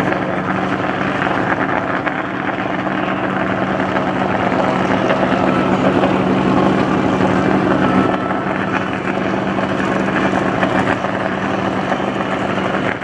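The nine-cylinder radial engines and propellers of a formation of Yak-52 and Nanchang CJ-6 trainers droning steadily as they fly past. The drone grows louder up to about two-thirds of the way through, then drops off a little.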